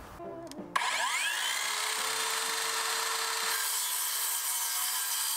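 HiKOKI circular saw spinning up about a second in with a rising whine, then running steadily as it cuts a 47 mm square tanalised timber upright to length at an angle.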